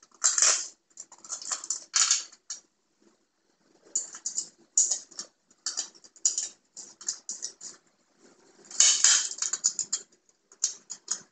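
Small metal light-fixture parts being handled: the mounting plate, screws and nuts clicking and rattling in irregular bursts, with the busiest bursts about two seconds in and about nine seconds in.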